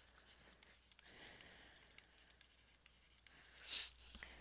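Faint scratching and light taps of a stylus writing on a tablet, with a short hiss near the end.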